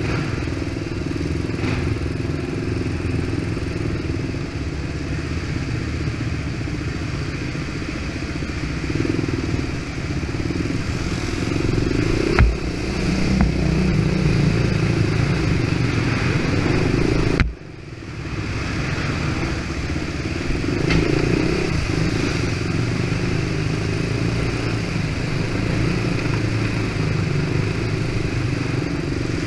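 ATV engine running under varying throttle while the quad drives through a flooded tunnel, with water splashing and clattering. There is a sharp knock just before halfway, and about 17 seconds in the sound drops suddenly for a moment before picking up again.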